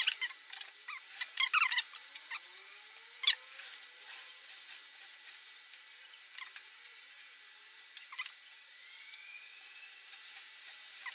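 Kitchen knife slicing a red bell pepper into strips on a wooden cutting board: scattered sharp clicks of the blade meeting the board, the loudest about three seconds in, with faint squeaks of the blade through the pepper's skin.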